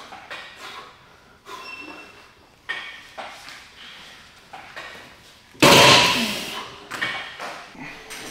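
Gym equipment clanking: a string of separate knocks and clanks, the loudest about halfway through, fading off over about a second.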